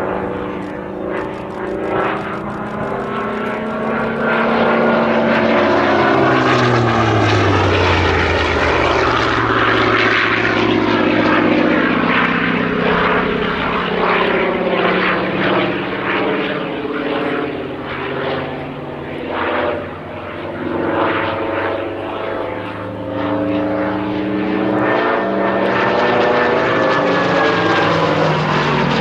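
Hawker Fury ISS's Bristol Centaurus 18-cylinder sleeve-valve radial engine and propeller as the fighter flies overhead. The engine note falls in pitch as it passes about seven seconds in, then rises and falls as it manoeuvres.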